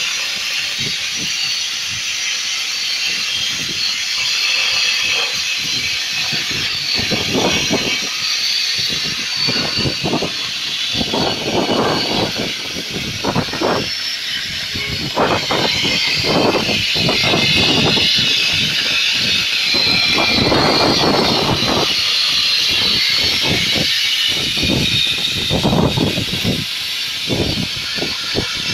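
CNC plasma cutting torch hissing steadily as its arc cuts through metal plate, with irregular rough sputtering that comes and goes throughout.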